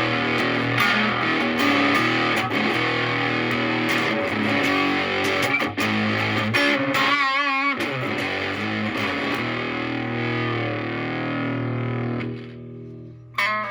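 Stratocaster electric guitar through a Moollon Fuzz 14, a silicon BC108 Fuzz Face-style fuzz pedal, into a Marshall Valvestate amp, with the fuzz partly cleaned up by rolling back the guitar's volume. It plays a run of notes and chords, with a note shaken with wide vibrato about halfway through. Near the end the notes die away, then a new chord is struck.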